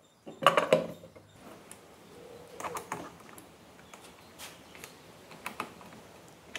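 Knocks and clatter of a scooter engine's belt-drive cover being set against the engine case, loudest about half a second in. Scattered clicks and light taps follow as the cover is fitted by hand.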